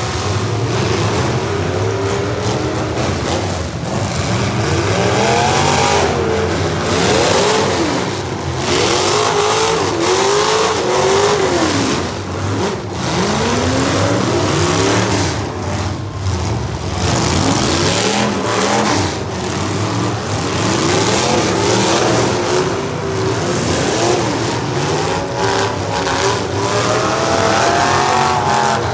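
Several modified demolition derby cars' engines revving up and down again and again, overlapping one another, over a steady noisy din.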